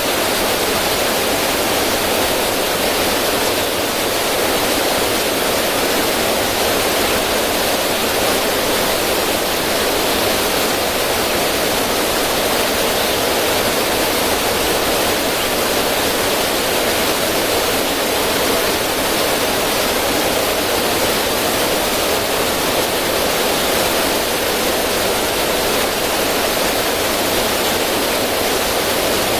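River water rushing and splashing over rocks in a small cascade, a steady, even rush with no breaks.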